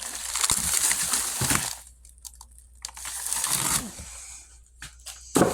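Plastic packaging crinkling as it is handled, in two spells: about two seconds at the start and about a second in the middle, with a few light knocks near the end.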